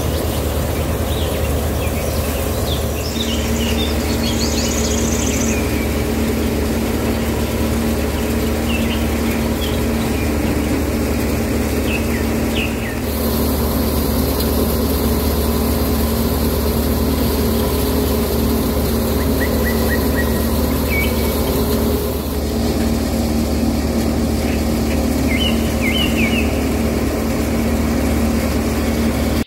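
Small electric motor running steadily with a constant hum, driving a miniature homemade rice-hulling machine. Short bird chirps come and go over it.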